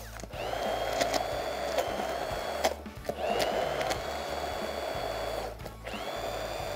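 Hand-held immersion blender puréeing cooked potatoes and milk into a smooth cream in a plastic beaker: a steady motor whir that stops briefly twice and whines back up to speed each time it restarts.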